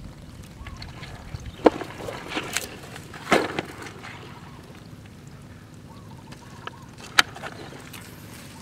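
Crab handling around a plastic bucket: a few sharp knocks and scrapes, the loudest a short cluster about three seconds in and another single knock near the end, over a steady outdoor hiss.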